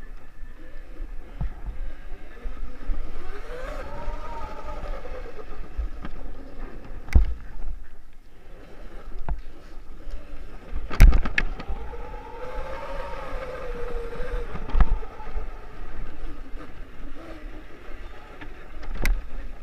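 Custom electric Puch Maxi moped's 3000 W, 72 V motor whining, its pitch rising and falling twice as it speeds up and eases off on a bumpy dirt trail. There is a steady low rumble, and a few sharp knocks come as the moped goes over bumps.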